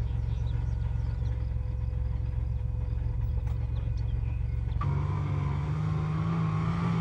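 Engine of a Sagaie six-wheeled armoured car running with a steady low rumble. About five seconds in, it switches abruptly to a louder, higher engine note as the car drives off.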